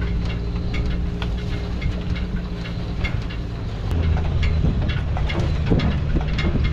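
Four-wheel drive's engine running while driving over a rough track, with frequent clicks and rattles. About four seconds in, the engine note drops lower and gets a little louder, and the rattling grows.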